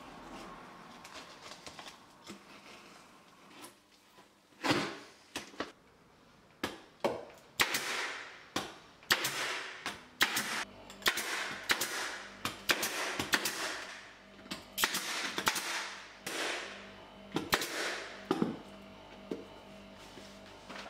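Pneumatic staple gun firing again and again into the floor, sharp shots about two a second from about five seconds in.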